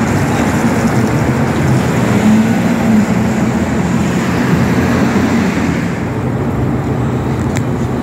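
Strong wind buffeting the microphone: a loud, rough low rumble that eases a little about six seconds in.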